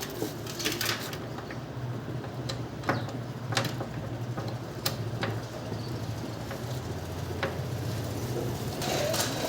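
Scattered light metallic clicks and taps of engine parts being handled as a new camshaft is fitted into a small motorcycle engine's head, over a steady low hum.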